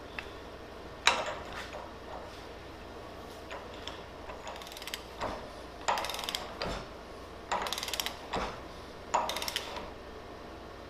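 Armstrong 3/4-inch drive ratchet clicking in about five short bursts of rapid clicks as it is swung back and forth. It is running the nut down onto a hydraulic cylinder's piston.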